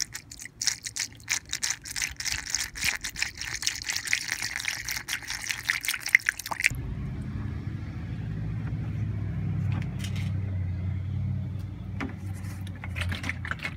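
Coolant glugging and splashing as it pours from a gallon bottle through a funnel into the radiator filler neck. About seven seconds in the sound changes suddenly to a lower, steadier rumble as the funnel fills up with coolant.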